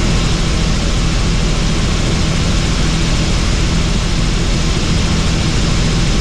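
Helicopter in flight: loud, steady engine and rotor noise with a deep, unchanging hum underneath.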